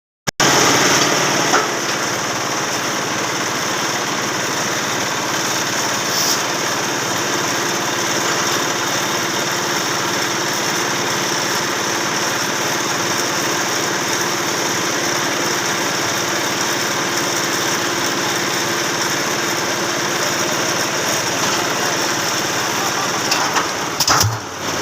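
An engine running steadily at constant speed, with a few short knocks near the end.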